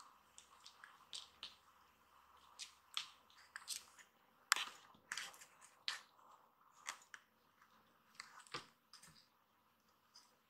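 Two kittens play-wrestling: scattered soft clicks, taps and scuffs of claws and paws on the floor, coming in an irregular patter with the sharpest tap about halfway through.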